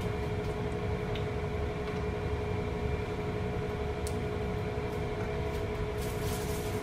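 Steady machine hum with a constant tone over a low rumble, like a running appliance or fan, with a couple of faint light ticks.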